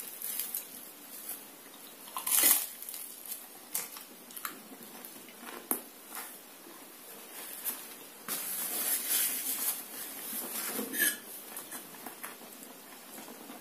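Sounds of eating pea soup with croutons: a spoon clinking against a bowl between bites, and crunchy chewing. The chewing is densest a little over halfway through.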